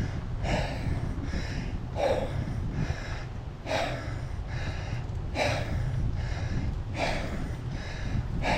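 A cyclist's heavy, laboured breathing from the effort of pedalling up a very steep climb: rhythmic breaths in and out, a little under one a second, over a steady low rumble.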